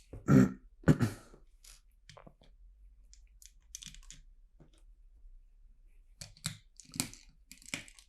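Plastic LEGO bricks clicking and clattering as they are handled and pressed together, with two louder knocks in the first second and scattered small clicks after.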